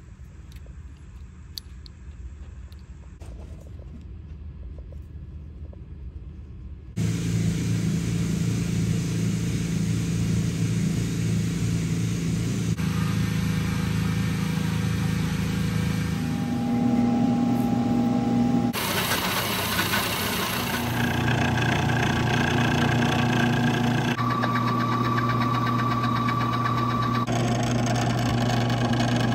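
A milling machine running and cutting metal on a turbocharger part, a steady machine hum with a higher whine. It starts abruptly after about seven quieter seconds of faint handling clicks, and its pitch shifts in sudden steps several times as the machining clips change.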